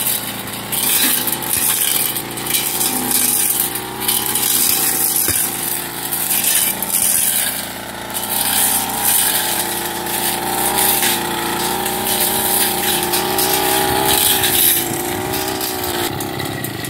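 Small two-stroke backpack brush cutter engine, about 30 cc, running at high revs as its metal blade cuts through grass and weeds, the engine note wavering up and down with the throttle and load and falling away at the very end. The operator takes the cutting to sound a bit off and rattly, which he puts down to a dull blade that has not been sharpened in a long time.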